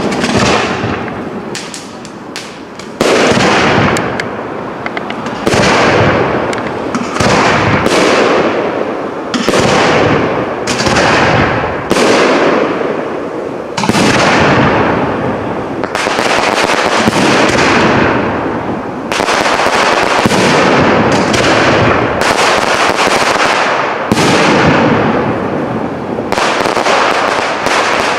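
Aerial fireworks shells of a professional display bursting in quick succession, roughly one or two bangs a second. Each bang trails off in a rolling echo, with a brief lull about two seconds in.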